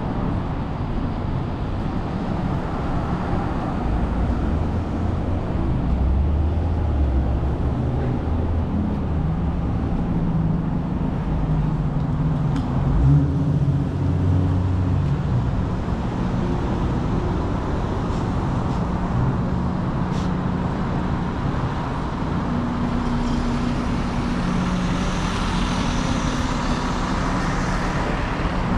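Downtown street traffic: vehicle engines running and passing, with a low engine drone strongest from about four to fifteen seconds in and a hiss near the end.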